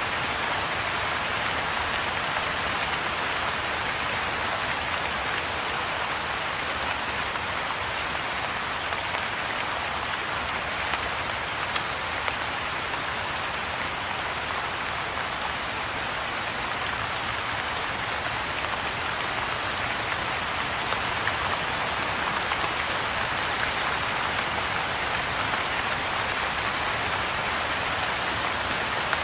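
Soft, steady rain falling onto the still surface of a pond and its grassy banks: an even hiss of many small drops, unchanging throughout.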